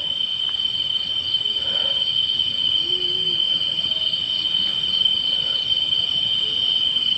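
Night insects singing in chorus: a steady, unbroken high-pitched trill.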